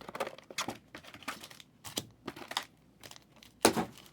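Packs and trading cards being handled: light crinkling of foil wrappers and cards clicking against each other at an irregular pace, with one louder rustle near the end.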